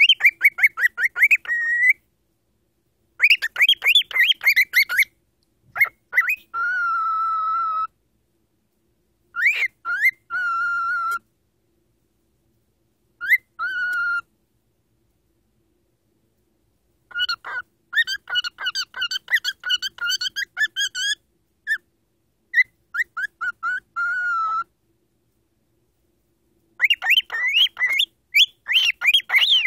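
Pet cockatiel whistling in bouts. Quick runs of repeated chirping notes alternate with long held whistle notes, one of which warbles, and there are pauses of a few seconds between bouts.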